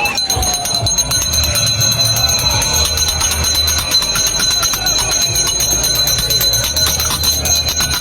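Noise-protest din: many bells ringing and objects being banged in rapid, overlapping clangs. Several steady high-pitched alarm-like tones run through it, with a few slow falling and rising tones.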